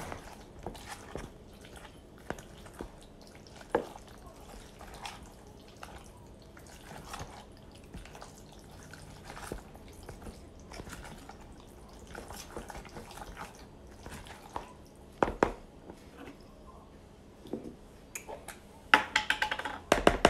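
A spoon stirring mayonnaise-dressed tuna salad in a clear plastic bowl: soft wet squishing and scraping, with a few sharper knocks of the spoon against the bowl. Near the end comes a quick run of clicks and taps as a spoon goes into a jar of relish.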